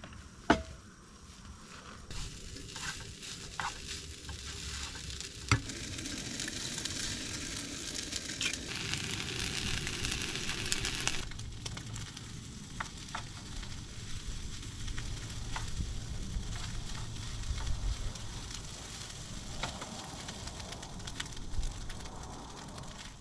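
Food sizzling in a metal pan on a portable gas canister stove, with sharp knocks and clinks of a utensil, the loudest about half a second and five and a half seconds in. The sizzle builds over the first ten seconds or so, drops abruptly about eleven seconds in, and goes on more quietly.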